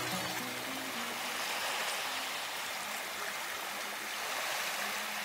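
A steady rushing noise, like flowing water, while the last faint notes of music die away in the first second or so.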